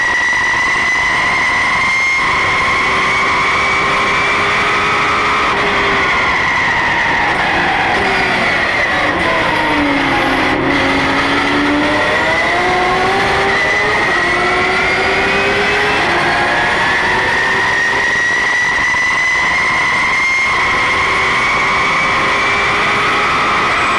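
Porsche GT3 Cup race car's flat-six engine heard from inside the cockpit at racing speed: held at high revs, then falling in pitch over several seconds around the middle as the car slows, and climbing steadily again as it accelerates away.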